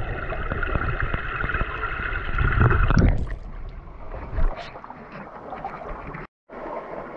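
Creek water heard from underwater, a dense muffled rushing and gurgling, until the microphone comes up out of the water about three seconds in. Then the open stream runs more quietly, with one short knock a little later and a brief cut-out of all sound near the end.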